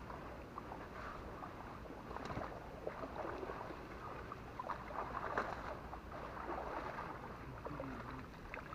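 Water sloshing and splashing as people wade through a shallow canal dragging a fishing net, with many small, irregular splashes over a steady wash of water noise.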